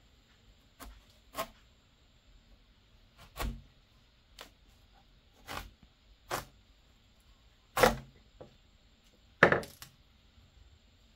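A run of irregularly spaced sharp knocks and cracks, about nine in all, the two loudest in the second half.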